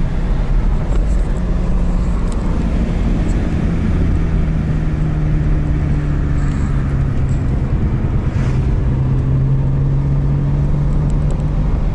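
Car engine running at a steady, moderate speed while driving on a race track, with a constant engine hum over road and tyre rumble; the engine pitch drops a little about three seconds in.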